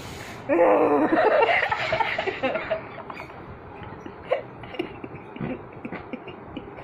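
Children's laughter: a loud burst of laughing from about half a second to three seconds in, then quieter scattered short giggles and vocal sounds.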